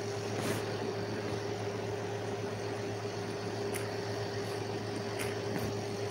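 Steady electrical or fan-like background hum with a constant mid-pitched whine, broken by a few faint short ticks.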